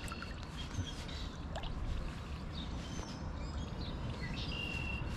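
Outdoor ambience: small birds chirping and whistling in short, scattered calls over a steady low rumble.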